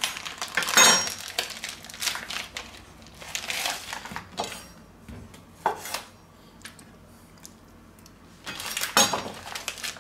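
Chef's knife cutting into a vacuum-sealed plastic sausage pack and chopping a bratwurst on a wooden cutting board: plastic rustling with short clatters and sharp knocks of the blade on the board, coming in several separate bursts.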